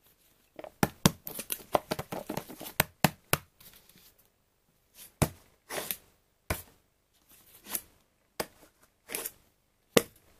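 Plastic yogurt cups with foil lids handled in the hands: a dense run of clicks and crinkles for the first few seconds, then single sharp clicks every half second to a second.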